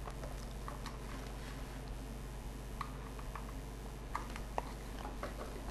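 Faint scattered clicks and scrapes of audio cable plugs being handled and pushed into the sockets of a small external sound card, over a steady low electrical hum.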